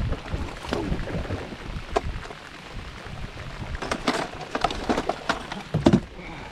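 Rain hissing steadily on the lake and boat. Several sharp knocks and clatters on the boat sound over it as a hooked bass is fought and landed.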